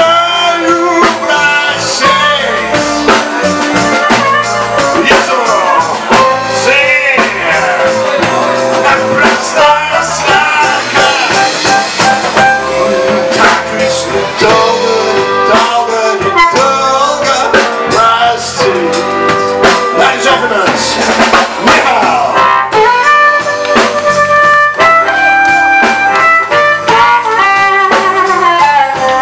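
Live blues-rock band playing loudly, with electric guitars over a drum kit.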